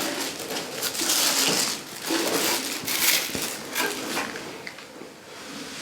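Packing material rustling and crinkling in irregular bursts as parts are handled, with a few small knocks.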